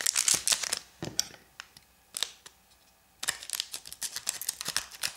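Foil Pokémon booster pack wrapper crinkling and crackling as it is handled, in short bursts that get denser over the last two seconds.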